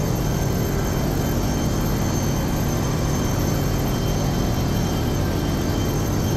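Steady machinery noise of a ship's engine room while the ballast pump runs, pumping out a double bottom tank through the ballast water treatment system: an even, deep hum with a faint high whine over it.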